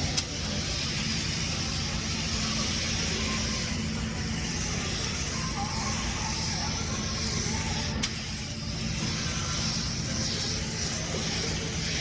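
Iwata spray gun spraying automotive primer: a steady hiss of compressed air and atomised paint, broken by two sharp clicks, one just after the start and one about eight seconds in.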